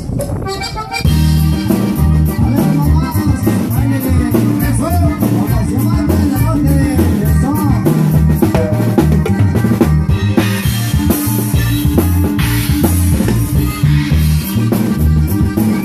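Live band playing an upbeat dance tune through PA speakers: a drum kit keeps a steady beat under electric bass and electric guitar. The full band comes in about a second in.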